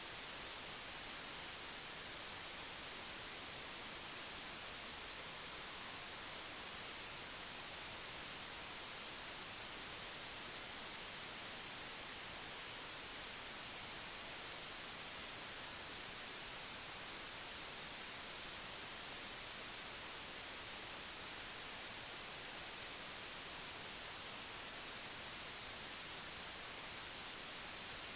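Steady, even static hiss with nothing else audible; it does not change at any point.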